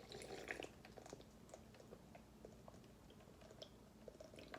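Faint close-up chewing and mouth sounds, with scattered small clicks and a soft noisy patch about the first half second.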